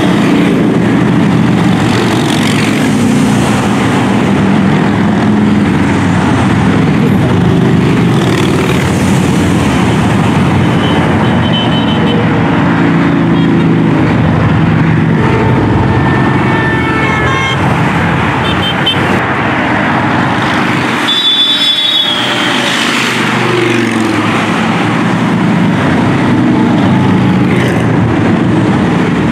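A steady stream of V-twin touring motorcycles (Harley-Davidson and Indian) passing below one after another, engines running at cruising speed amid highway traffic noise. Short horn toots sound a few times, around 16 and 21 seconds in.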